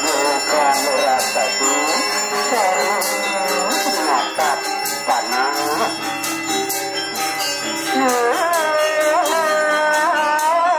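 Balinese gamelan music for a temple dance: a wavering, sliding melody over steady bell-like ringing tones, with fast crisp strokes throughout.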